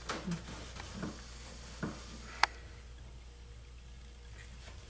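Low steady room hum with a few faint rubbing and handling noises early on, and one sharp click about two and a half seconds in.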